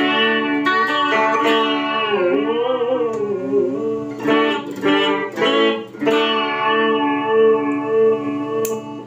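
Electric guitar played through a Joyo Vision Dual-Modulation pedal set to vibrato: ringing chords whose pitch wavers up and down, with several fresh strums near the middle.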